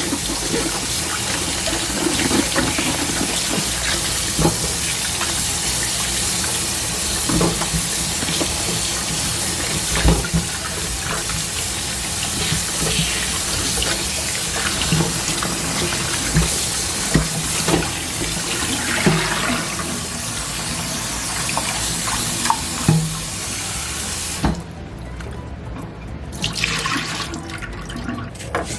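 Kitchen faucet running steadily into a sink, with occasional light knocks of things being handled under the stream. The water shuts off about 24 seconds in and runs again briefly near the end.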